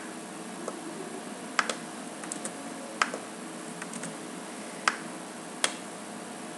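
A handful of sharp, separate clicks from a computer mouse and keyboard, spaced irregularly a second or two apart, over a faint steady hiss.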